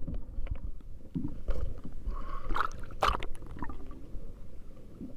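Sea water sloshing against the hull of a Malibu 2 sit-on-top kayak over a low rumble, with scattered handling knocks, the sharpest about three seconds in.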